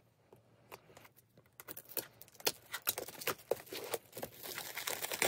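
Plastic shrink wrap on a boxed set being picked at with a pen tip and torn open: scratchy crinkling with many sharp clicks, sparse at first and growing busier from about two seconds in.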